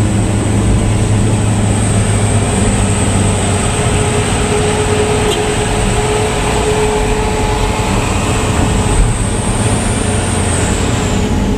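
Steady engine drone and road noise heard from inside a moving vehicle's cab, with a thin high-pitched whine running under it.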